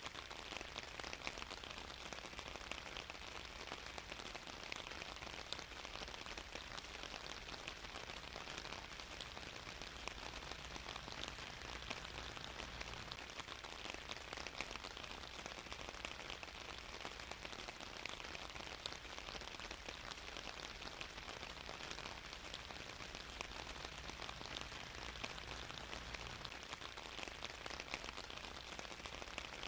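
Steady rain falling on a surface, an even hiss thick with fine patter of drops.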